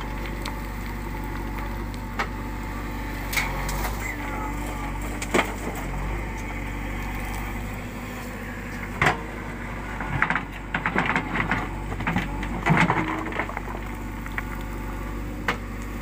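JCB 3DX backhoe loader's diesel engine running steadily under load while the backhoe bucket digs through stony soil, with sharp cracks and scrapes of rock and earth. These come singly at first and bunch together from about ten to thirteen seconds in.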